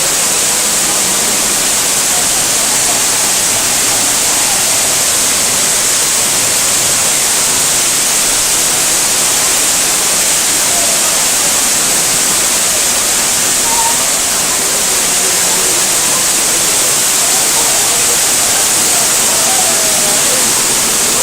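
Waterfall pouring right beside the microphone: a loud, steady, hissing rush of falling water.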